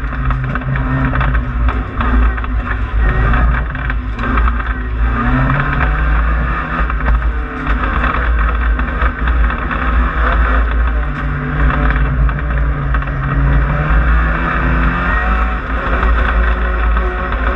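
Renault Clio Williams race car's 2.0-litre four-cylinder engine running hard under race load, heard from inside the stripped cabin, its revs climbing and dropping several times through gear changes and corners.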